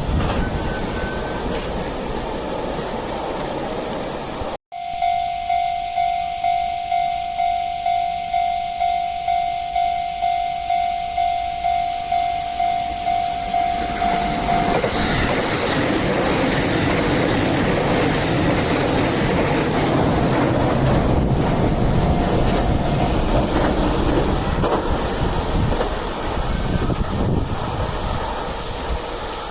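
A train running through a railway level crossing with rumbling wheel noise. After a cut, the crossing's warning bell rings, a steady repeated electronic ding about twice a second. About ten seconds later a train passing over the crossing swells over it and takes over.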